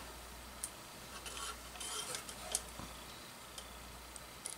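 Scattered light clicks and taps of small hand work on wiring, as wires are connected to a solid state relay.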